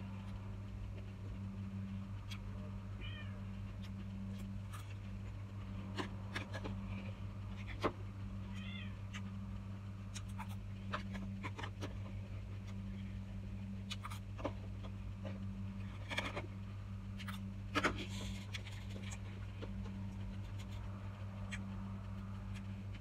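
A cat meowing briefly, twice, with the clicks and scrapes of a metal spoon on plastic bowls, over a steady low electrical hum.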